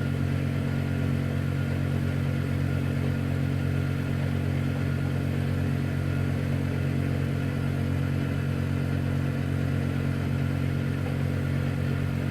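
Tumble dryer running with a steady, even motor hum.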